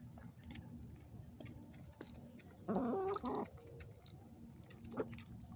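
Hens clucking softly while they peck grain from a hand, with faint ticks of pecking. About three seconds in, one hen gives a single louder, wavering call lasting under a second.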